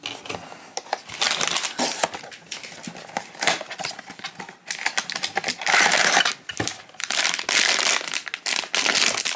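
Hands opening a small cardboard blind box and crinkling the foil bag taken out of it: uneven crackly rustling that gets louder and busier in the second half.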